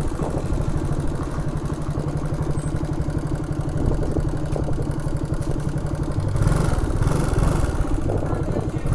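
A vehicle engine running steadily, with a brief rush of noise about six and a half seconds in.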